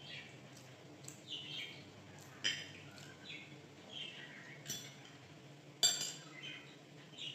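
A caged pet bird chirping repeatedly in short falling notes, along with a spoon and fork clinking against a plate; the loudest clink comes about six seconds in.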